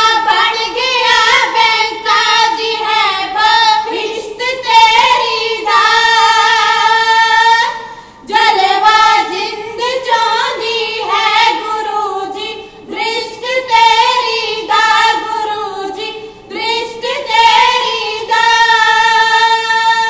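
Three young women singing a kavishri verse together in unison, unaccompanied, in long held phrases with short breaks between lines.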